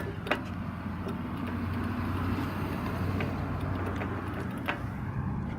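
Road traffic passing: a steady noise of engines and tyres that swells and eases through the middle. A sharp click comes about a third of a second in, with two fainter clicks later.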